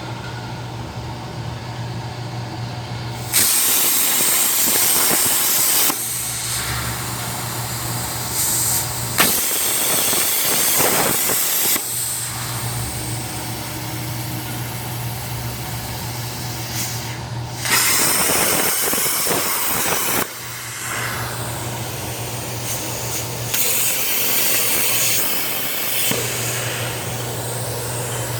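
CNC pantograph machine running: a steady low hum alternates with four stretches of loud hissing noise, each lasting about three seconds, that start and stop abruptly.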